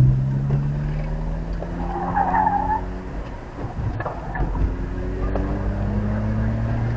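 BMW E46 325xi's straight-six engine under load on an autocross course, its pitch easing off and climbing again with the throttle, and the tyres briefly squealing about two seconds in.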